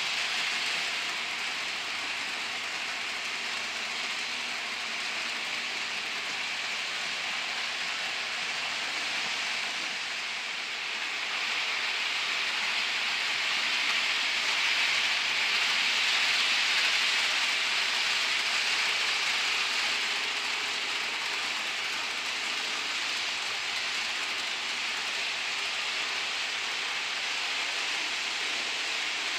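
HO scale model train rolling along the track: a steady whirring, rattling hiss of small wheels and motor, louder for a while near the middle as the train passes close.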